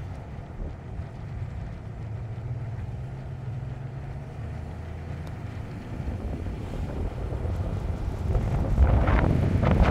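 Low, steady rumble of a car driving slowly, heard from inside. Wind starts buffeting the microphone and grows louder over the last couple of seconds.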